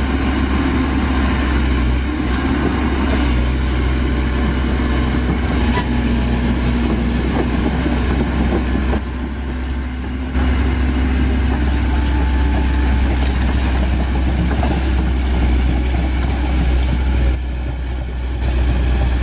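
Komatsu PC130F hydraulic excavator's diesel engine running steadily under load as the machine tracks and works through grass. It goes briefly quieter twice, about nine seconds in and again near the end.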